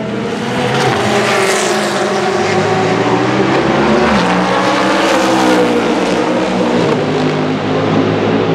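Racing cars' engines passing at speed, loud and continuous, with the engine note of one car dropping in pitch as it goes by about four seconds in.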